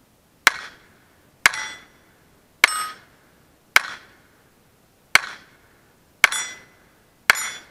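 Browning Buck Mark .22 pistol fired seven times at a steady pace, about one shot a second, with steel target plates ringing after the shots.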